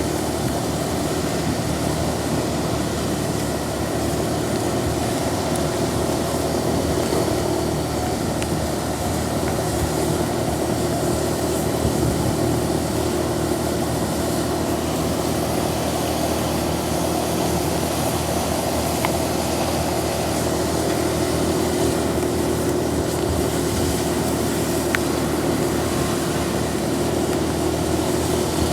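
Steady drone of vehicle engines mixed with the even hiss of heavy rain, unchanging throughout, with no horn melody.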